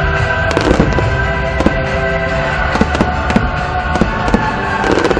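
Aerial fireworks going off in an irregular string of sharp bangs and crackles, over music with long held notes.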